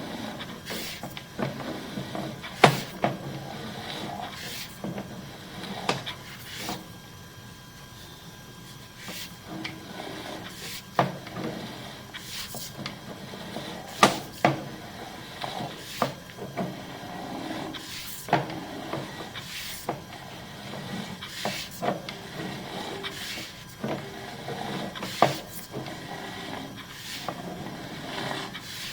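Scattered sharp knocks and clicks, one every second or two, over a faint steady hum.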